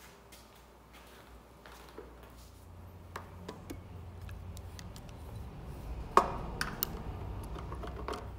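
Metal clicks and knocks as an aluminium jig plate and a Kreg bench clamp are handled and set down on a sliding table saw's aluminium table, with one sharp clack about six seconds in. A low hum comes up under the knocks after a couple of seconds.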